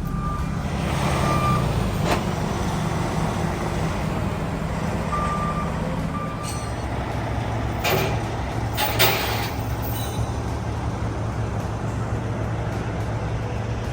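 Heavy vehicle's engine idling, with a few short beeps from a reversing alarm and two short hissing bursts about eight and nine seconds in.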